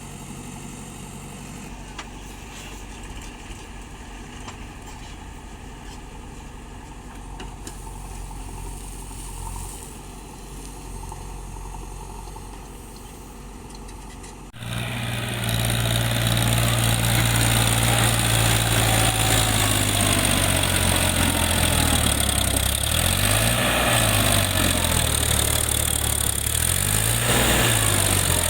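Diesel engine of heavy earthmoving machinery running steadily, then suddenly much louder about halfway through, with the engine speed dipping and rising twice near the end as it works under load.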